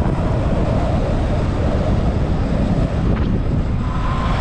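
Heavy wind rumbling and buffeting over the microphone while riding fast into a strong headwind on an electric dirt bike.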